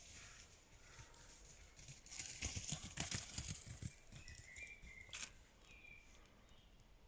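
Birds chirping with short calls, and about two seconds in a couple of seconds of rustling and rapid knocking close to the microphone.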